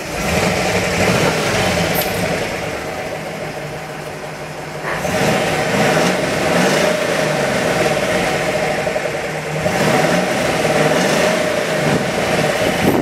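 The PAZ-32053 bus's carburetted petrol V8 engine running. It gets louder right at the start and again about five seconds in, with its pitch rising and falling a few times as the engine is revved.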